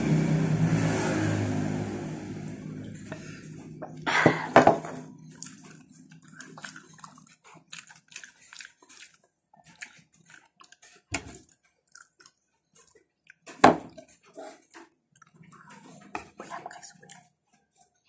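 A motor vehicle going past, fading away over the first few seconds. Then close-up eating sounds: scattered wet clicks and smacks of chewing, with a few sharp knocks, the loudest about four seconds in and again near the fourteen-second mark.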